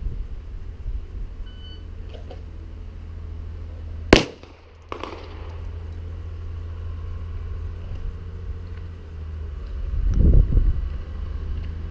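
A shot timer's short electronic beep, then about two and a half seconds later a single sharp 9 mm pistol shot from a Gen 3 Glock 17. A fainter report follows under a second later, with a steady low rumble underneath that swells briefly near the end.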